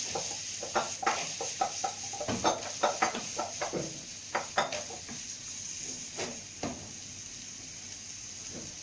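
A fork clinking and scraping against a steel pan while packing rice stuffing into a hollowed zucchini: quick, irregular taps that thin out after about seven seconds.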